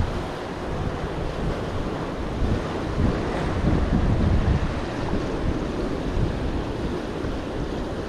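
Ocean surf washing and breaking against the rocks of a jetty, with wind gusting on the microphone as low rumbling buffets.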